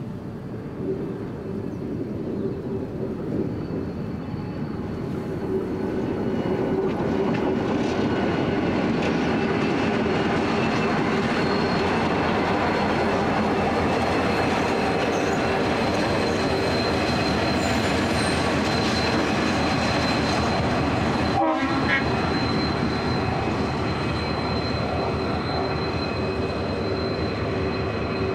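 Diesel-electric locomotives BL29 and XR550 running light. Their engine drone and wheel noise build over the first several seconds as they approach, then hold steady and loud as they pass close by, with a thin steady whine running through the sound.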